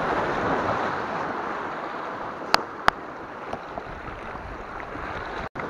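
Small sea waves washing and splashing over shoreline rocks, with two sharp clicks about two and a half seconds in.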